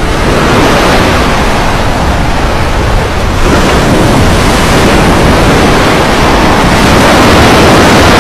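Ship's anchor chain running out, a loud, steady rushing noise.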